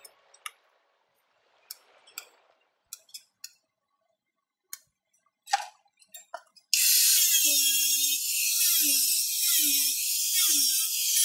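A few faint clicks and taps of handling, then an angle grinder switched on about two-thirds of the way in, running at speed with a loud high whine and hiss.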